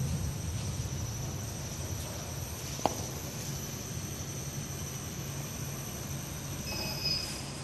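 Steady low machinery hum with a thin high whine over it. A single sharp click about three seconds in, and a short high beep near the end.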